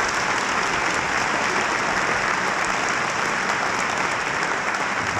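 A large audience applauding steadily in a hall.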